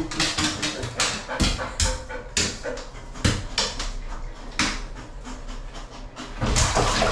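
Golden retriever panting, in a run of quick, uneven breaths.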